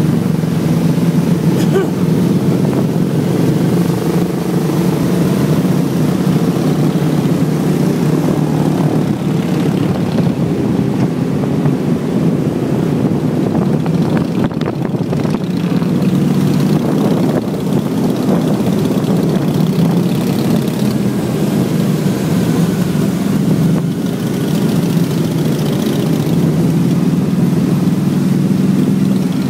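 A large pack of motorcycles, sport bikes and small commuter bikes, riding together in convoy with a steady, continuous engine drone at cruising speed.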